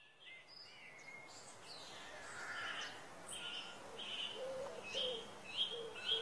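Birds calling: many short chirps and whistles throughout, joined about halfway through by a string of lower, repeated cooing notes.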